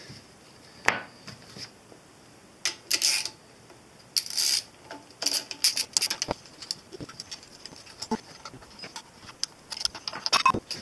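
Scattered metal clicks and short scrapes as a hex key is fitted to and turned on the cap screws holding the drawbar cylinder housing of a Fadal VMC 4020 spindle head, unbolting the assembly.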